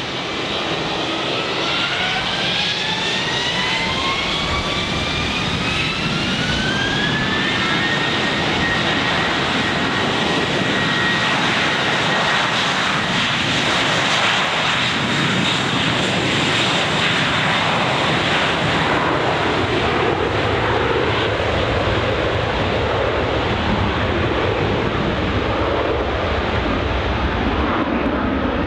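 Spirit Airlines Airbus A321-231's twin IAE V2500 turbofans spooling up for departure. The whine rises in pitch over the first several seconds, then holds as a steady high whine, over a loud, steady jet rush that carries on to the end.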